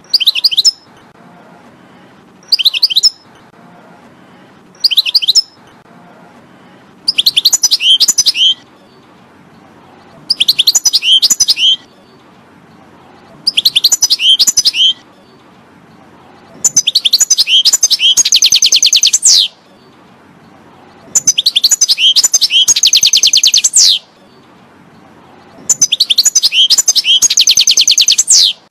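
European goldfinch singing: about nine twittering song phrases separated by pauses of one to two seconds, the first few brief and the later ones lasting two to three seconds and carrying a fast, dense trill. A faint steady hiss lies under the gaps.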